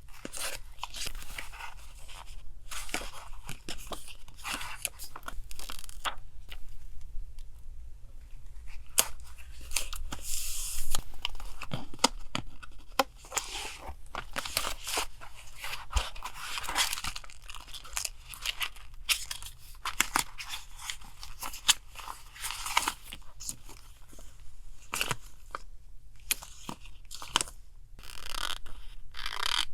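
Paper being handled close up: irregular rustling and crinkling of sheets with tearing, scattered sharp taps and clicks, louder about ten seconds in.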